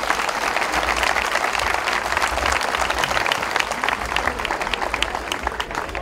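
A crowd applauding, many hands clapping in a dense, even patter that thins out near the end.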